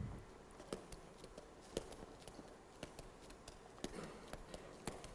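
Juggling balls being caught in the hands, a steady run of soft slaps about three a second, as three balls are juggled in the 612 siteswap pattern.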